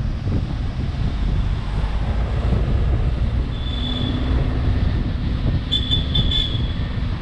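A vehicle's low rumble with wind buffeting the microphone. A brief high-pitched tone sounds about three and a half seconds in, and a few short high beeps come around six seconds.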